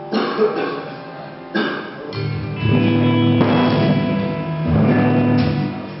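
A band playing: guitar chords strummed in a few separate strokes, then joined about two seconds in by low, held notes.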